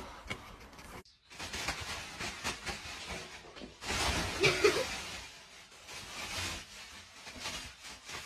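Thin plastic carrier bag rustling and crinkling as a cat moves about inside it and it is lifted, starting about a second in.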